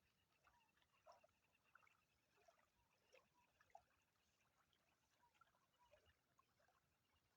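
Very faint natural ambience: scattered short chirping calls, likely birds, over a steady, fast pulsing trill.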